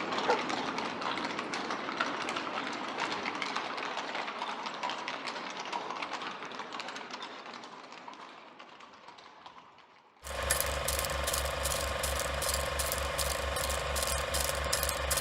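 A busy, clicking street-noise sound effect fades away, and about ten seconds in a steady mechanical clatter starts suddenly. The clatter runs at about four or five clicks a second over a constant hum.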